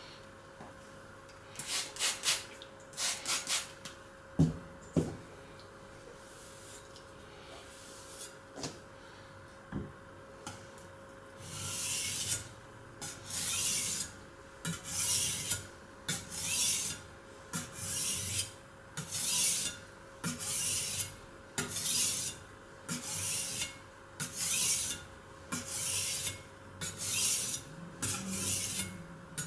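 Chinese vegetable cleaver blade stroked back and forth on a sharpening stone, making a gritty scraping rasp. A few scattered strokes come at first, then, after a pause, a steady rhythm of about four strokes every three seconds.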